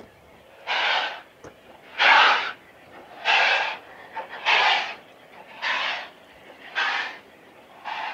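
Exhaust beats of Bulleid Battle of Britain class light Pacific 34067 Tangmere, a three-cylinder steam locomotive working a train. The chuffs come evenly, about one a second.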